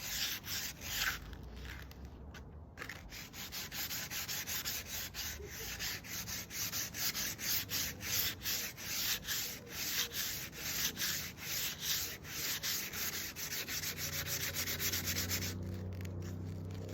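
Sandpaper rubbed by hand over a piece of wood in quick back-and-forth strokes, rounding off its corners. The strokes pause briefly about two seconds in and stop near the end.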